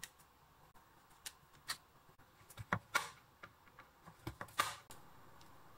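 Light scattered clicks and taps of kitchen utensils, then a knife chopping a chocolate bar on a bamboo cutting board: a few sharp knocks about halfway through and again near the end.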